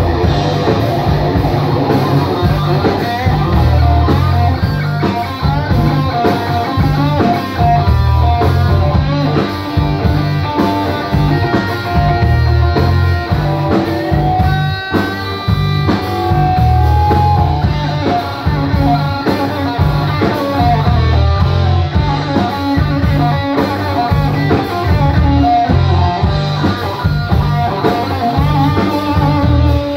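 Live rock band playing: electric guitar carrying melodic lead lines with bent notes over a drum kit and bass guitar.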